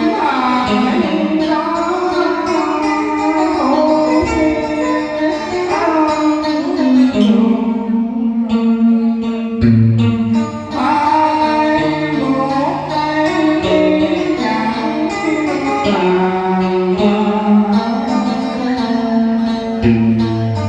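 Music from a Vietnamese song: a melody with bending pitches over a sustained bass accompaniment.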